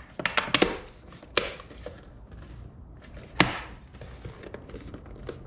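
Plastic side-mirror cap being pressed and snapped back onto the mirror housing: a series of sharp plastic clicks and knocks, a quick cluster at first and the loudest about three and a half seconds in.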